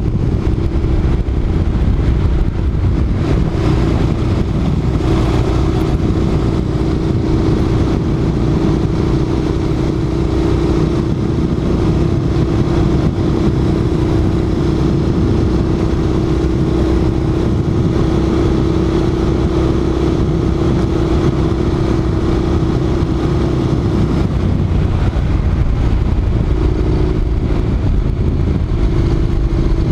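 Honda NC700X's parallel-twin motorcycle engine running steadily while riding. Its pitch holds even for most of the time and shifts a little near the end.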